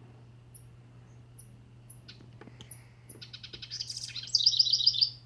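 Songbird calling: thin, very high chip notes about every half second, then a fast trill that starts about three seconds in and grows much louder near the end.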